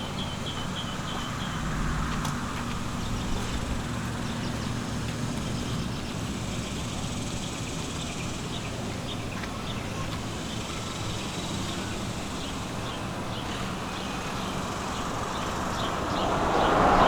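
Steady low hum of vehicle engines with short, repeated bird chirps; a louder passing-vehicle noise swells up near the end.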